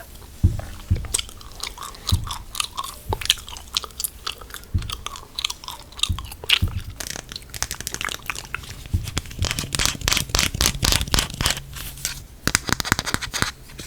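Gum being chewed: a run of quick mouth clicks and smacks that gets denser about nine seconds in.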